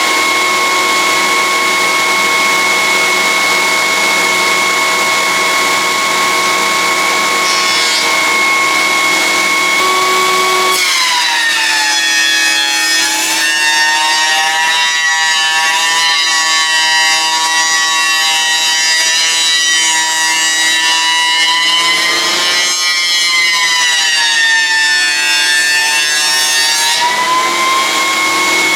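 Cutech 6-inch jointer with a helical cutterhead running with a steady high whine, then dropping in pitch under load as a board of pallet wood is fed across the cutterhead from about a third of the way in. The pitch comes back up briefly once in the middle of the cut and fully again near the end as the cut finishes.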